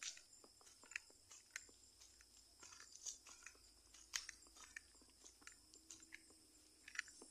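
Faint, irregular crunching footsteps on grass and dry leaves.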